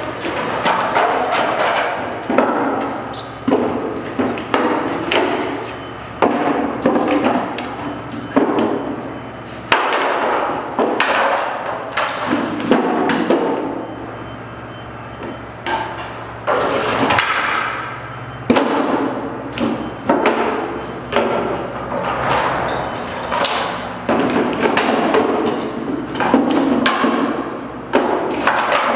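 Laminated chipboard cabinet panels knocking and clattering against each other and the concrete floor as the broken pieces are handled, stood up and fitted together. Irregular knocks and bumps come in quick clusters, with a quieter stretch around the middle.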